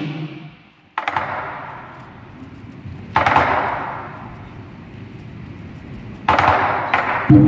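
Southern lion dance hand cymbals crashed three times, a few seconds apart, each left ringing and fading, while the drum pauses; the lion drum and cymbals come back in together right at the end.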